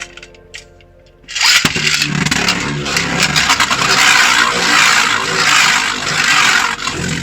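A Beyblade Burst top launched into a plastic stadium about a second and a half in, then spinning and grinding around the bowl with a loud, steady, rattling whirr.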